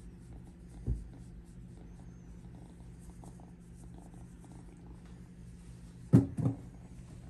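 Kitten purring, a steady low rumble. A soft bump about a second in and two sharp knocks near the end, the loudest sounds.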